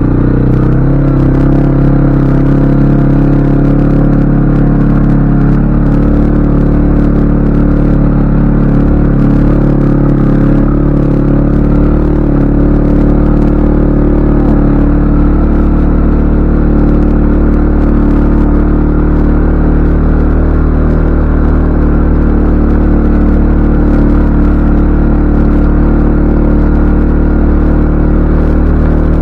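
CFMoto ATV engine running steadily, a constant drone with little change in pitch.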